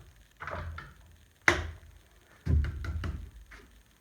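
Handling noise of a wooden jig being moved on the table saw: rubbing and sliding with a few small ticks, and one sharp knock about a second and a half in.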